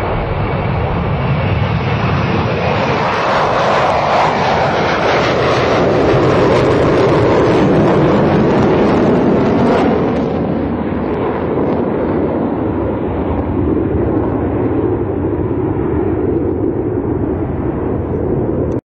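Tupolev Tu-144 supersonic airliner's jet engines heard close by as it lands: loud, steady jet noise that swells as the aircraft passes low over the runway and eases after touchdown as it rolls away. The sound cuts off suddenly near the end.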